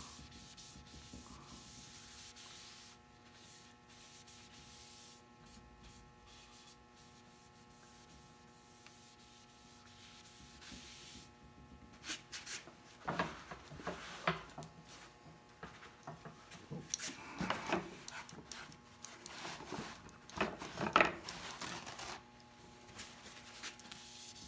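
A soft paper towel rubbed by hand over a varnished wooden model hull, polishing it with compound. It is faint for the first half, then comes in a run of irregular back-and-forth strokes from about halfway in, the loudest near the end.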